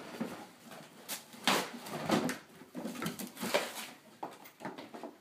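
Intermittent rustling and light knocks of loose plastic toy parts being handled, a few short irregular bursts.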